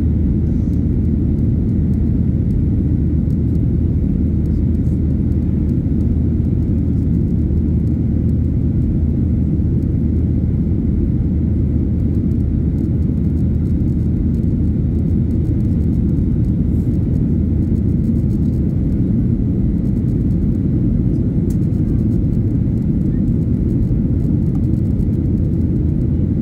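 Steady low rumble of a Boeing 737-800's engines and airflow heard from inside the passenger cabin.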